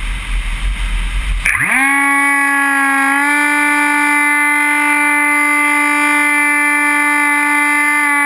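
Wind rushing over the microphone, then about a second and a half in the Dynam Hawk Sky's electric motor and propeller spin up with a quickly rising whine. The whine levels off into a steady, high-pitched drone, stepping up slightly in pitch about three seconds in.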